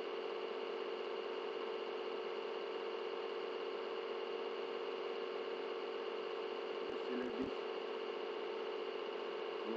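Steady electrical hum with a constant hiss, the background noise of the recording microphone with no one speaking. There is a brief faint knock about seven seconds in.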